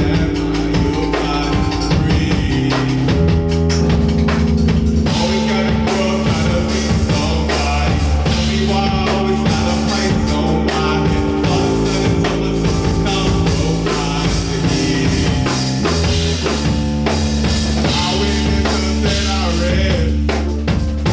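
Live rock band playing an instrumental passage: a drum kit keeps a steady beat under sustained bass notes that change every few seconds.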